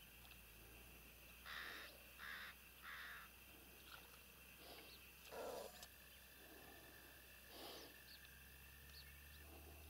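Near silence with a few faint, short bird calls: three in quick succession about a second and a half in, then a couple more later.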